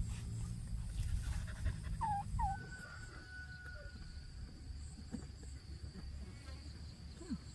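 Steady high-pitched insect drone that comes in about three seconds in. About two seconds in there are two short falling squeaks, followed by a thin steady whistle lasting about two seconds.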